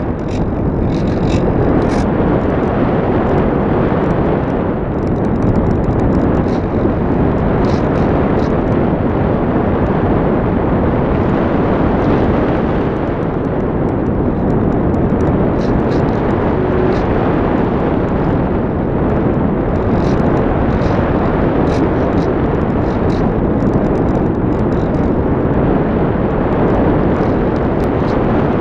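Steady rush of air over a camera mounted on a radio-controlled model glider in flight, with faint high ticks and rattles now and then.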